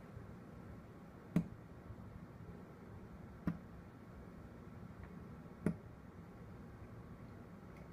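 Three sharp clicks about two seconds apart: push buttons being pressed on the ultrasonic cleaner's thermostat control panel. A faint steady low hum runs underneath.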